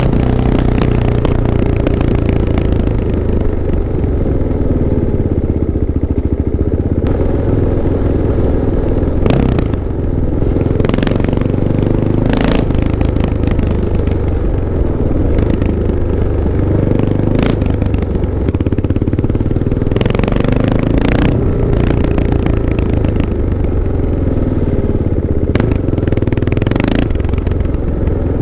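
Kawasaki KLX 650's single-cylinder four-stroke engine running, its engine speed rising and falling slowly several times, with short sharp clattering noises now and then.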